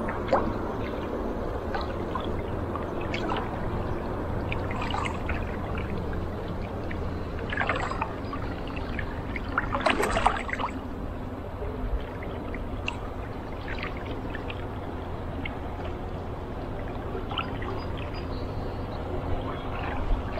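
Double-bladed paddle dipping into calm river water in steady strokes, water splashing and dribbling off the blades, with the loudest splash about halfway through.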